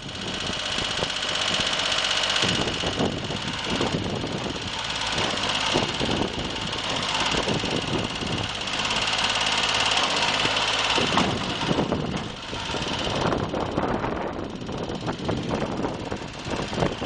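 Mitsubishi MT1601D compact tractor's small diesel engine running as the tractor is driven and turned, its engine note shifting a couple of times, with more rattle near the end.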